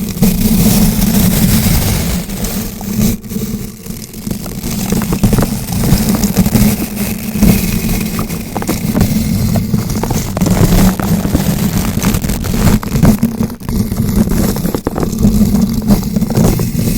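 Bristle brush rotated against a bare microphone: continuous close scratching and crackling over a heavy low rumble, swelling and easing as it turns.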